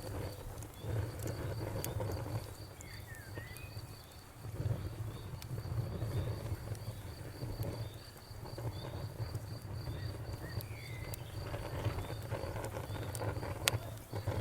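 Campfire crackling with scattered sharp pops, the loudest near the end, over a low rumble that swells and fades. A cricket chirps steadily in quick, even pulses throughout.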